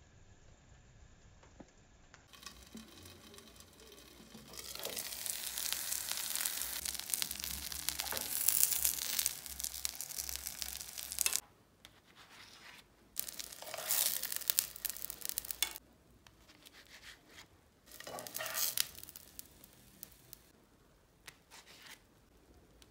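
Potato-based mini pizzas frying in a covered non-stick pan, a steady sizzle that builds about four seconds in and cuts off suddenly after several seconds. Then come two short scraping bursts as a spatula slides the pizzas onto a wooden board.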